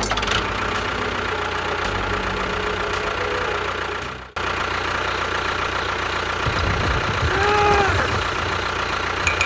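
A motor running steadily with a rough, even mechanical noise. It cuts out for an instant about four seconds in and resumes. A short gliding tone sounds near the end.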